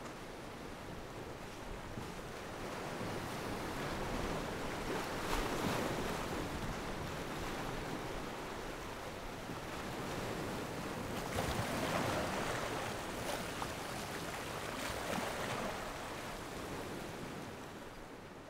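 Sea surf washing onto a sandy beach, waves swelling and breaking. It grows louder about five seconds in and again around twelve and fifteen seconds, then dies down near the end.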